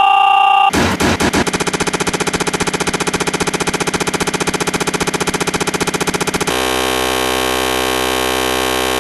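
Harsh, distorted electronic buzz: a steady tone breaks into a rapid stutter of pulses under a second in, then switches to a steady buzzing drone about six and a half seconds in.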